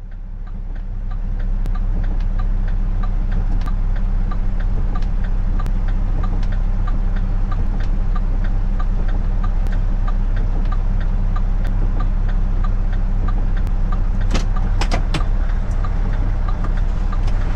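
Mack Granite plow truck's diesel engine running steadily, building up over the first second or two. A light regular ticking about twice a second runs along with it, and a few sharp clicks come near the end.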